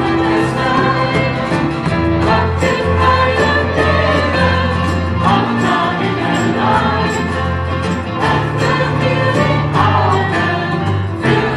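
Live acoustic band playing a song: singing voices over strummed acoustic guitars, violin and keyboard, with a steady beat.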